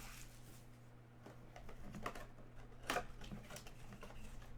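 Faint scattered clicks and light rustling from handling trading-card packs and cards, with one sharper click about three seconds in, over a steady low electrical hum.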